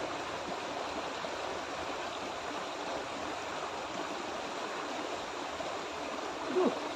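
A small river rushing steadily as it pours over a low rock ledge into a pool. There is a brief, louder sound that slides in pitch near the end.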